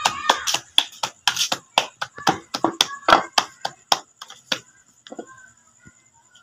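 Roti dough being slapped flat between the palms by hand: a quick run of slaps, about four or five a second, that stops a little after four seconds in, followed by a couple of soft knocks.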